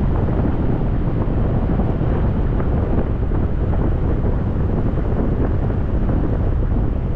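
Steady rushing wind buffeting the microphone of a camera mounted on a hang glider in flight.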